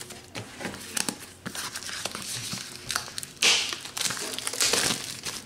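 Clear plastic shrink wrap crinkling and crackling as it is peeled and pulled off a cardboard product box, in irregular rustles with louder stretches about three and a half seconds in and near the end.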